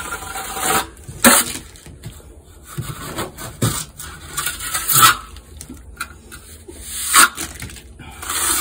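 Steel trowel scraping and spreading wet stucco base coat on a wall patch and against a hawk, in irregular strokes with several sharp clacks.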